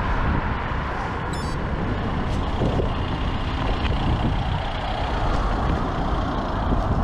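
Steady road traffic noise from cars passing on a dual carriageway, with a short high-pitched chirp about a second in.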